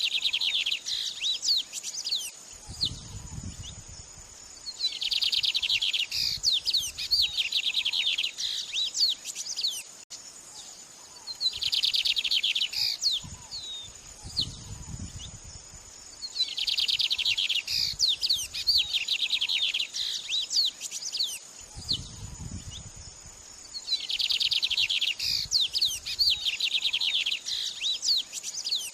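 Songbird singing: bursts of rapid, high trills of about two seconds each, coming back roughly every six seconds, with quick sweeping chirps in between.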